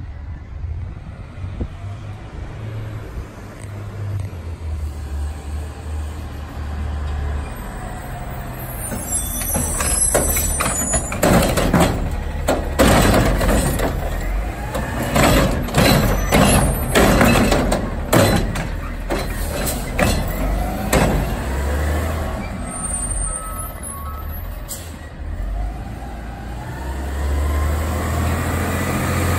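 Front-loader garbage truck with a Curotto-Can automated arm: the diesel engine runs steadily, air brakes hiss, then a long run of bangs and clatter as the arm lifts and tips a wheeled cart into the can, and the engine rises in pitch near the end as the truck pulls away.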